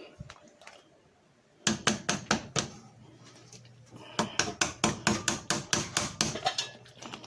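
A spoon knocking against a pot in quick repeated clacks as gravy is stirred. It starts a little under two seconds in, pauses briefly, then goes on at several knocks a second.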